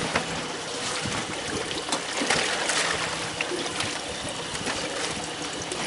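Sea water sloshing and trickling against the side of a fishing boat, with a faint steady hum and a few light knocks.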